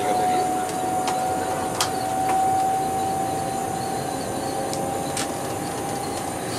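Cab interior of an Alstom Coradia Meridian ETR425 electric multiple unit under way: steady running noise with a whine that rises slowly in pitch, and a few sharp clicks.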